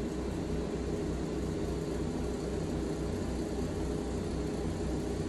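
Medicamat NeoGraft hair-transplant unit running: a steady mechanical hum from its pressure and vacuum pump, with a low throb about three to four times a second.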